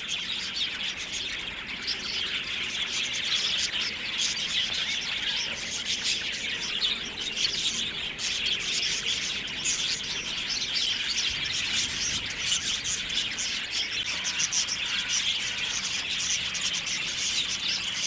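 A large flock of budgerigars chattering, a dense, unbroken mass of quick high chirps and twitters from many birds at once.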